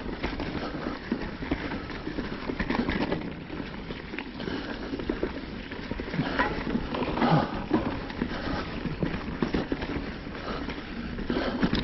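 Full-suspension mountain bike clattering down a rocky trail: tyres knocking over rocks and roots, with the chain and frame rattling in quick, irregular knocks.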